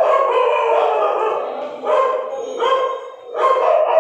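A dog barking repeatedly, loud, in a run of about four barks.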